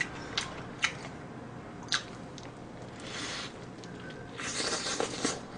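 A person biting into and chewing a fried chicken thigh burger piled with lettuce. There are a few short sharp clicks in the first two seconds, then two longer noisy stretches, about three seconds in and again near the end.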